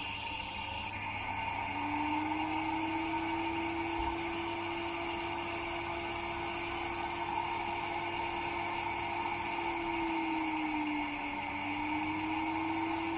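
Built-in dust-extraction vacuum motor of a Sprint 50 pedicure machine spinning up about a second in and then running with a steady whine, over the whine of the running drill handpiece. Its pitch sags briefly about ten seconds in. The motor was brought in for a foreign noise while running.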